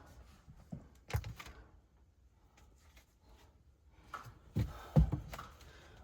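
A few scattered thumps and knocks, one about a second in and a close group of three near the end, the loudest of them about five seconds in.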